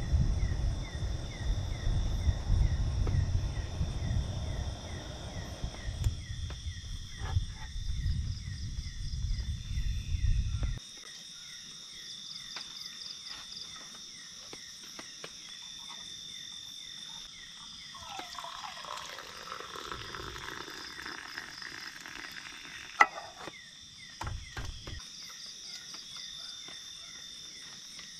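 Crickets and other insects chirp in a steady night chorus, with a rhythmic chirp about three to four times a second. Under them a portable butane camping stove's burner rumbles until it is shut off abruptly about eleven seconds in. A single sharp click comes a little after the middle.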